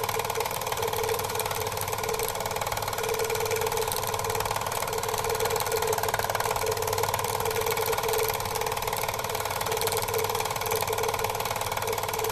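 Film projector running: a steady, rapid mechanical clatter from the film-advance mechanism, over a constant hum.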